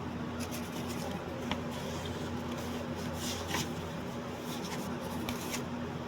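Steady low electrical hum and hiss, with scattered faint rustles and clicks.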